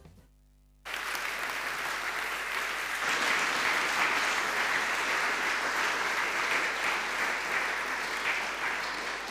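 Congregation applauding: clapping starts abruptly about a second in after a brief hush, holds steady, and thins slightly near the end.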